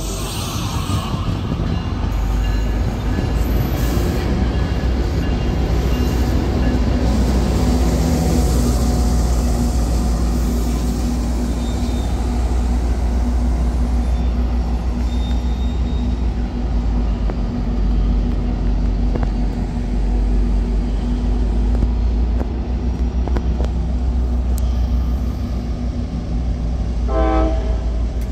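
Tri-Rail push-pull train departing: the diesel locomotive's engine runs with a steady deep drone over wheel and rail noise as the train moves off. A brief horn toot sounds near the end.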